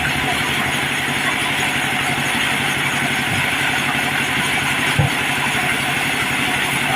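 Engine driving a mobile wood sawmill running steadily with an even low throb, and a single sharp knock about five seconds in.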